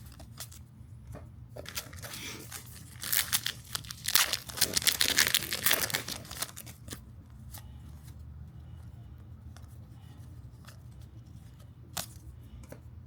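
A foil trading-card pack wrapper being torn open, a crinkly tearing loudest between about three and six seconds in, with short clicks and rustles of cards being handled around it.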